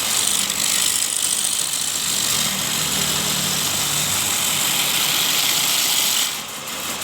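A motor running with a loud, steady hiss that stops suddenly about six seconds in.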